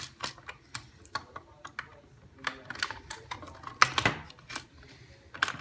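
Irregular small clicks and taps of plastic and metal as an Addi Express knitting machine is handled and unscrewed from underneath, with a louder knock about four seconds in.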